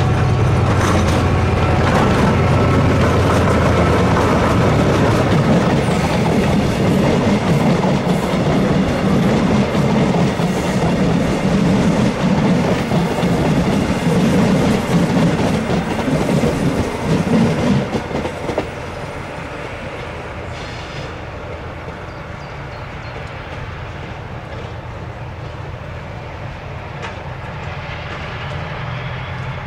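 TransPennine Express Class 68 diesel locomotive passing with its engine running, followed by its coaches clattering over the rail joints and points. About 18 seconds in the clatter drops away to a quieter, steady rumble, and another train's engine tone comes up near the end.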